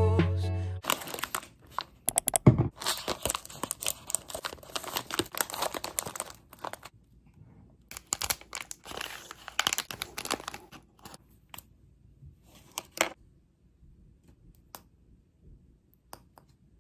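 Background music cuts off just under a second in. Then fingers tear open and crinkle a plastic candy wrapper: runs of sharp crackles with pauses, one loud crackle about thirteen seconds in, and only a few small clicks near the end.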